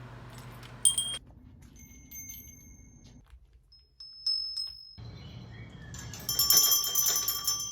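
Small bell chiming: one sharp ding about a second in, a single ring midway, and a cluster of bright, overlapping rings near the end.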